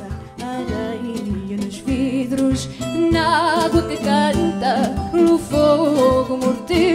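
Fado song performed live: a woman's voice singing with wide vibrato over plucked Portuguese guitar and guitar, with a steady percussion beat.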